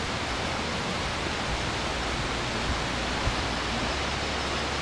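Melincourt Falls, a waterfall about 80 feet high, giving a steady, even rush of falling water.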